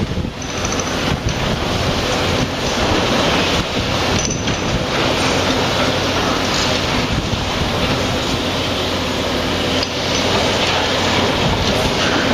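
Volvo excavator's diesel engine running steadily, with scattered knocks and clinks from its hydraulic concrete pulverizer crushing concrete.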